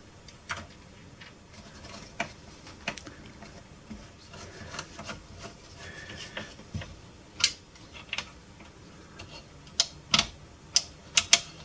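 Screwdriver and fingers working on a power switch and its screws on an amplifier's metal chassis: scattered small clicks and scraping, metal on metal, with a few sharper clicks in the second half.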